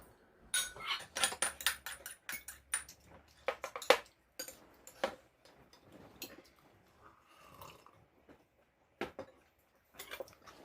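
Cutlery clinking and tapping against dishes during a meal, with some chewing. The clinks come thick and fast over the first few seconds, thin out, and a few more come near the end.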